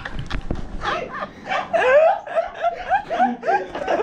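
Laughter: a run of short, repeated chuckles that starts about a second in. Two sharp clicks or knocks come just before it, in the first half-second.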